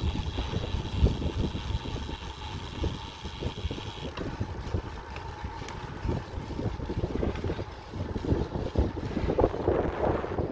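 Wind buffeting the microphone of a camera riding along on a moving road bike, a gusty, uneven rumble.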